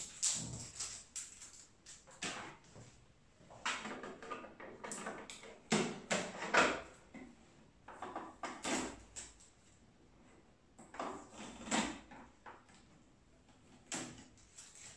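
Blue shipping tape being peeled off a new Epson EcoTank printer's white plastic casing, heard as irregular short rasps and clicks with pauses between them.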